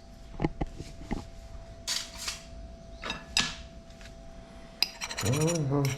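Metal utensils clicking and scraping on a pan or plate: a few light clicks, then two short scraping sweeps and another click. A man's voice is heard briefly near the end.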